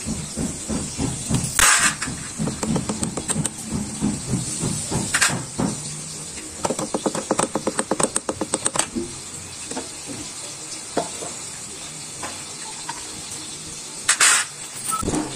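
Hand tools working on a Kawasaki Barako 175 engine: scattered knocks and scrapes, with a run of rapid, even clicks lasting a couple of seconds about halfway through.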